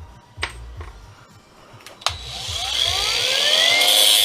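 A couple of light clicks, then about two seconds in a handheld power tool starts up, its whine rising in pitch and settling high with a loud hiss as it cuts into a metal part of the safety switch, a test cut that shows the part is brass.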